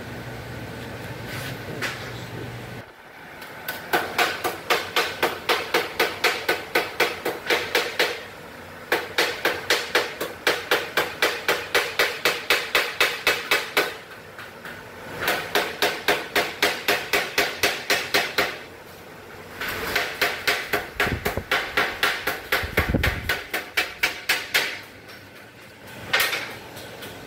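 Hammer blows on sheet steel, shaping a rust-repair panel on a pickup's bed side: quick even strikes at about four to five a second in four runs of several seconds each, with short pauses between, and one last single blow near the end.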